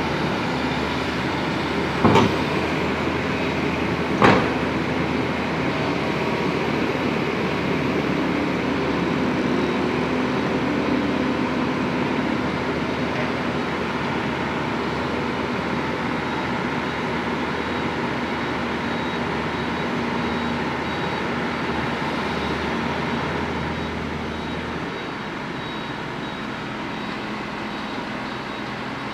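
Diesel engine of a Bauer GB 50 diaphragm-wall grab rig running steadily, with two sharp metallic knocks about two and four seconds in. The low drone drops away about four-fifths of the way through, leaving a quieter running sound.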